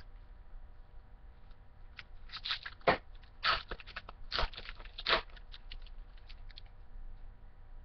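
Crinkling and crackling of a trading-card pack wrapper being torn open and its cards handled, in a burst of sharp crackles from about two to five seconds in.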